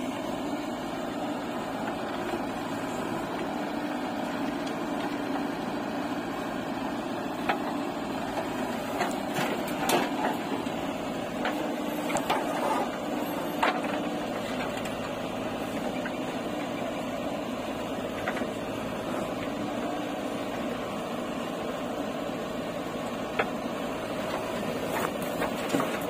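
JCB 3DX backhoe loader's diesel engine running steadily under hydraulic load while the backhoe digs and loads soil. Scattered short knocks and clatters of the steel bucket and soil come through, most of them in the middle and again near the end.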